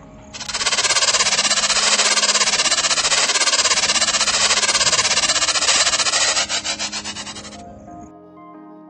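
Spinning prize wheel ticking: a loud, fast rattle of clicks that slows into separate ticks and stops about seven and a half seconds in, over background music.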